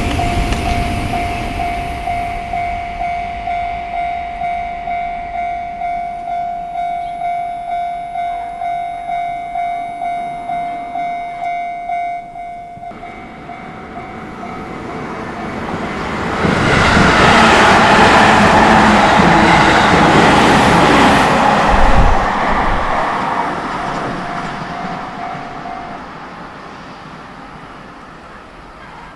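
Japanese railway level-crossing alarm ringing, a repeated electronic bell at about two strikes a second, which drops away about thirteen seconds in. A train on the JR Tokaido Line then passes the crossing: loud for about six seconds, then fading as it moves away.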